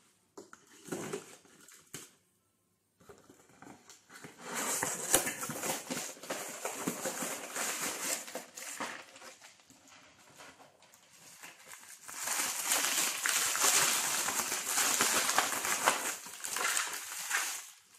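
Cardboard box flaps opened and white packing paper pulled out and crumpled, with dense rustling and crinkling of paper and plastic packaging in two long spells.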